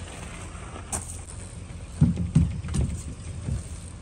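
BMX bike ridden over gravel and hitting a bank: a few heavy low thuds with sharp clicks about two to three and a half seconds in, over a steady low rumble.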